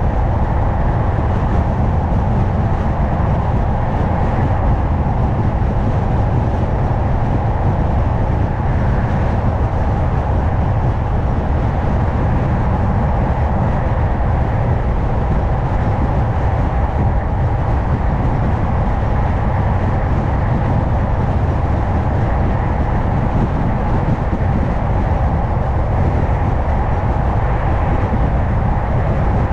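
A car driving at a steady speed: continuous tyre and road noise with engine hum, heavy in the low end, with no distinct events.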